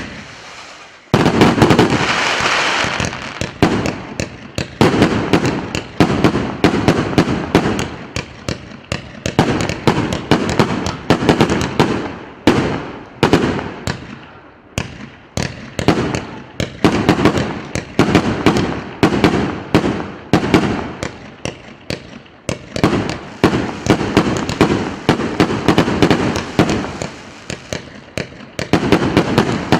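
A 288-shot, 1.2-inch consumer firework cake firing a rapid, dense barrage of shots and bursts, several a second, starting about a second in after a brief lull.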